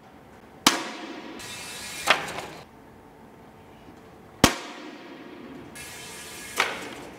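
Anschütz 9003 10-metre air rifle firing two sharp shots about four seconds apart, each followed a second or two later by a softer, longer noise.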